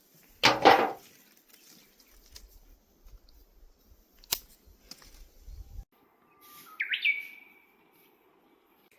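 A loud rustling scrape about half a second in and a sharp click a little after four seconds. Near seven seconds a bird gives a short call that sweeps upward, then holds a whistled note that fades.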